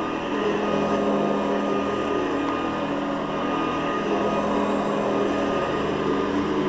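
Hoover Guardsman upright vacuum cleaner running steadily on a rug, its motor humming under a noisy brush roll, which the owner puts down to the new plastic brush-roll bushings.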